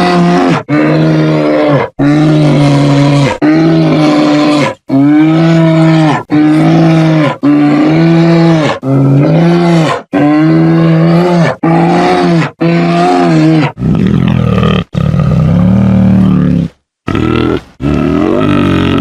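Grizzly bear sound effect: a string of loud, short pitched calls, each about a second long and cut off cleanly. About two thirds of the way through comes one longer, rougher and lower call of some three seconds, then one more short call.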